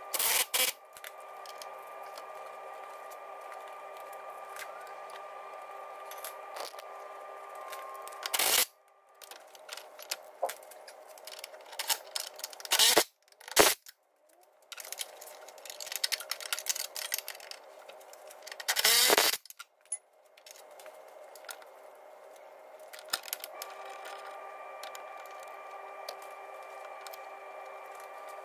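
Cordless Milwaukee 3/8-inch mini impact driver running in short, loud bursts, about five times, as the suspension arm bolts are nipped up. Under it runs a steady hum of several fixed tones, which drops out for a few seconds in the middle.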